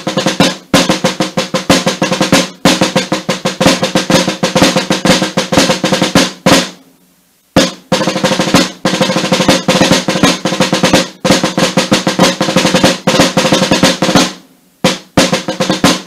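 Rope-tension drum played with wooden sticks in a rudimental drum solo: fast strokes and rolls, broken by two short pauses, one about seven seconds in and one about fourteen and a half seconds in.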